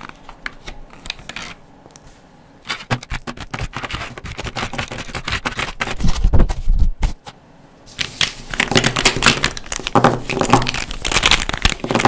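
Plastic Pensan Jumbo felt-tip markers clicking and rattling against each other and their clear plastic tray as they are lifted out and gathered into a bunch by hand, with a heavier knock about six seconds in.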